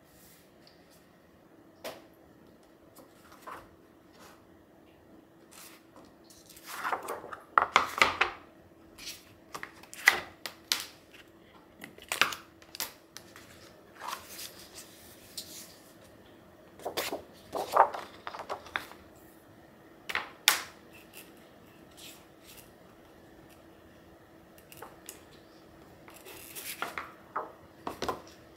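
Sheets of paper calendar rustling and sliding on a wooden table as they are picked up, sorted and laid into a wooden hanger: short irregular swishes with light taps between, the loudest a few seconds in. A faint steady hum sits underneath.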